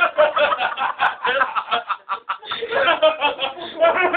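People snickering and laughing.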